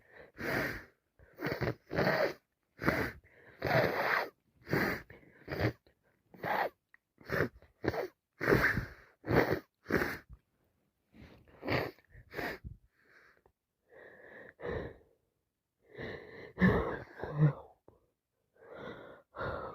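A person sneezing over and over in a rapid fit, with sharp gasping intakes between the sneezes, about one burst a second for the first ten seconds, then fainter and further apart. It is a sneezing fit from allergies and a cold.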